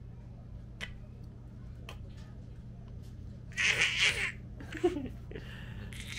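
A baby babbling and laughing, with a loud breathy laugh about three and a half seconds in and short babbles after it. A steady low hum runs underneath.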